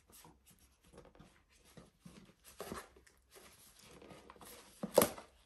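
Hands opening a small gift box: faint scattered rustling and scraping of the packaging, with one sharp, much louder sound near the end.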